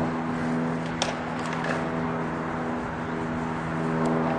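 Diesel locomotive engine running with a steady, even drone, with one sharp click about a second in.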